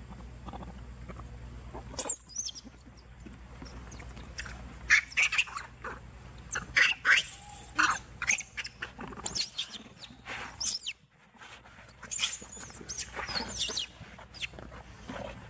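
Juvenile macaques screaming during a scuffle, in many short, high-pitched squeals in quick succession. The squeals start about two seconds in and pause briefly about two-thirds of the way through.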